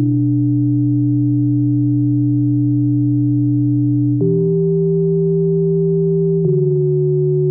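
Background music of long, held synthesizer-like chords that shift to a new chord twice.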